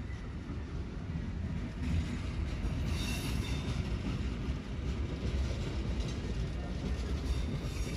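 Train rolling past on the rails, a steady rumble of wheels and wagons, with a brief high wheel squeal about three seconds in.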